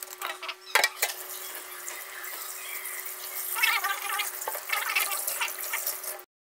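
Tap water running into a stainless steel sink and splashing over a whole plucked chicken as it is rinsed by hand, starting about a second in after a sharp click.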